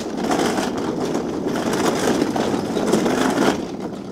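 Small hard casters of a loaded wheeled dolly rolling over concrete: a continuous gritty rumble that eases off near the end.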